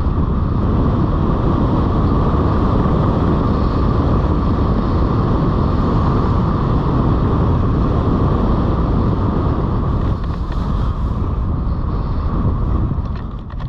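Airflow buffeting the microphone of a camera mounted on a hang glider in flight: a loud, steady rush of wind that eases a little near the end as the glider comes down close to the ground.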